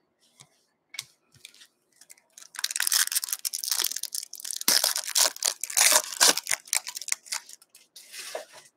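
Foil wrapper of a 2019-20 O-Pee-Chee hockey card pack being torn open and crinkled: a dense crackling rustle that starts about two and a half seconds in and runs for several seconds, after a few light clicks of cards being handled.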